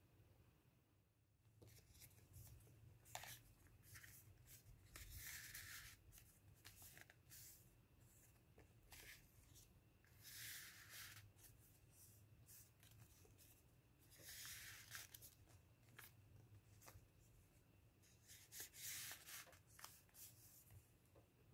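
Faint rustling and crinkling of folded lined-paper cones being handled and slid together, in a few separate bursts of about a second each with small clicks of paper between them.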